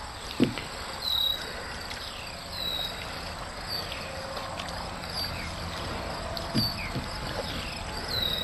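Double-bladed paddle dipping and pulling through calm water as a wooden strip-built kayak is paddled, with a sharp click just under half a second in and two low knocks about six and a half seconds in. High chirping calls repeat in the background.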